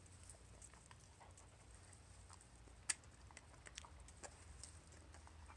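Dog foraging in a gooseberry bush, rustling the leaves and eating the berries: faint, scattered small crackles and clicks, with one sharper click about three seconds in.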